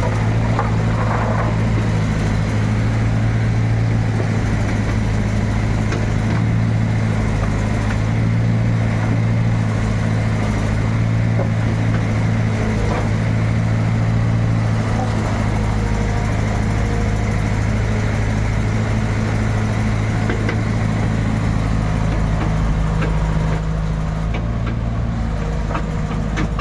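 Backhoe's diesel engine running steadily at a low, even pitch, with a few light knocks near the end.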